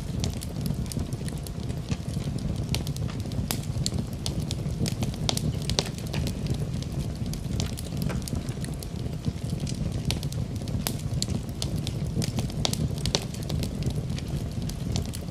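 Fire in a fireplace crackling: frequent sharp, irregular pops and snaps over a low, steady rumble.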